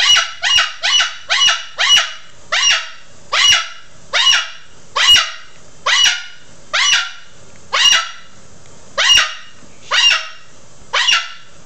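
A parrot giving loud, short screeching calls over and over, each one dropping in pitch. They come quickly at first, two or three a second, then slow to about one every half to three-quarters of a second.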